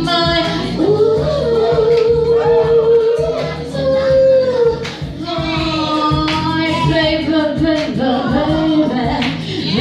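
A woman singing, holding long drawn-out notes, with music beneath.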